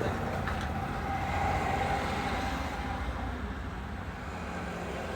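Steady low rumble of background road traffic, with a faint held tone in the first few seconds and a single light click about half a second in.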